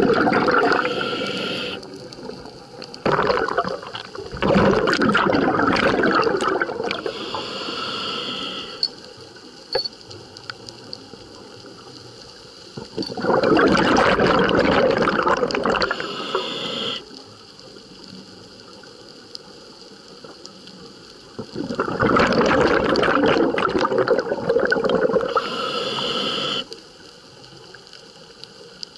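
Scuba diver breathing through a regulator underwater: long rushes of exhaled bubbles, each lasting several seconds and coming about every eight seconds, with quieter stretches of inhaling between them.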